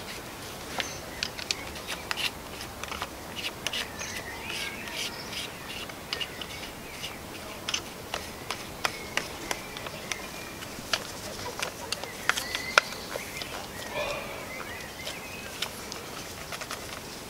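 Wild birds chirping and calling, with many scattered sharp clicks and taps from handling a corded power drill while a wooden spindle is fitted into its chuck. The drill motor is not running.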